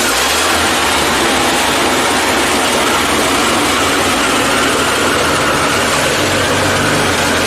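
ZIL-164 truck's six-cylinder side-valve petrol engine running steadily.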